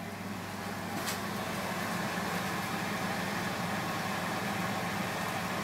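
Kitchen range hood fan running with a steady hum, with a single light clink about a second in.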